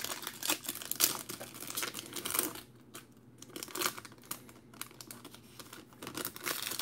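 Foil trading-card pack wrapper crinkling and tearing as it is ripped open by hand, in irregular crackly bursts with a short lull about three seconds in.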